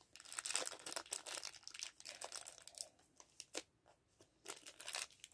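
Small clear plastic bag crinkling and rustling as it is handled and opened to get a toy out of a gachapon capsule, in irregular bursts with a short lull a little past halfway.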